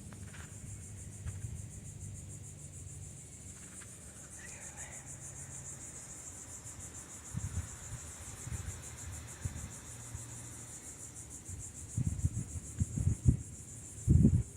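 Insects trilling steadily at a high pitch in a fast, even pulse. Low rumbling bumps on the microphone come in over the last few seconds.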